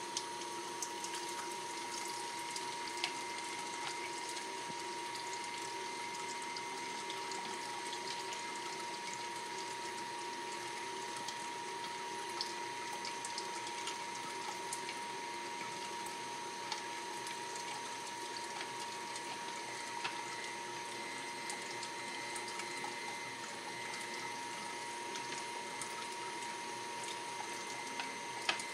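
Electric food strainer running steadily as it pushes cooked vegetable pulp out of its spout: a constant hum with a steady whine and a few faint clicks.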